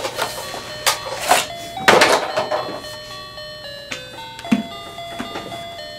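Background music of held notes that change pitch in steps, with a few sharp knocks in the first two and a half seconds.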